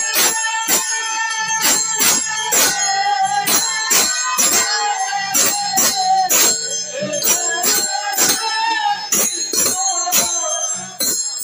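Bengali kirtan music: a khol drum and ringing hand cymbals keep a steady beat of about three strokes a second, with a voice singing over it.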